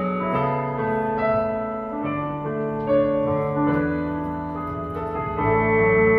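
Electronic keyboard playing a piano-like tone: a melody over sustained chords, the notes changing every half second to a second.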